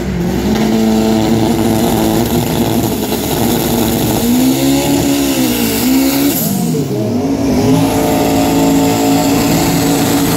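Drag-race car engines, one of them a V8, revving hard: the pitch climbs and holds high and steady, wavers and dips about halfway through, climbs and holds again, and falls away at the very end.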